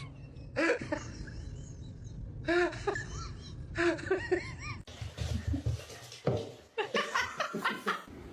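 A person laughing in several short bursts of pitched, arching laugh sounds.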